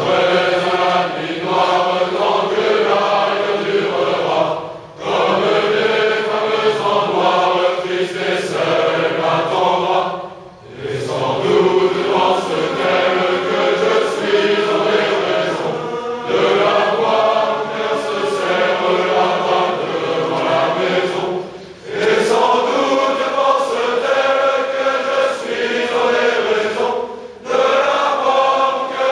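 A large group of young men singing a song together without accompaniment, in long phrases broken by short pauses for breath about every five or six seconds.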